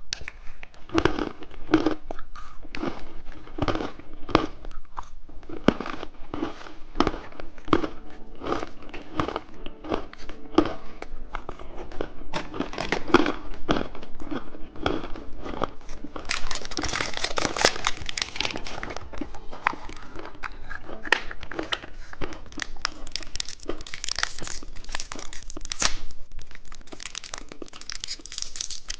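Plastic candy wrappers crinkling and tearing as the packaging is opened, with many short rustles and clicks from handling. A little past halfway there is a longer, denser stretch of tearing and crinkling.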